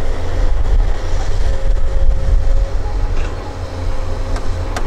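Long-reach hydraulic excavator working: a steady low diesel rumble with a faint steady whine as the long boom lowers the loaded bucket into a dump truck's bed. A few sharp knocks come near the end.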